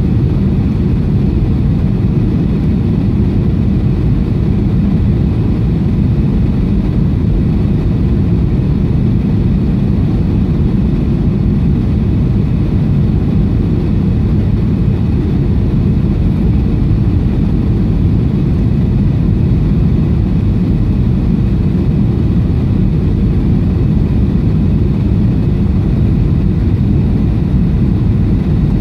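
Steady cabin noise inside a Boeing 737-700 on approach: its CFM56-7B engines and airflow heard from a window seat over the wing, deep and unbroken.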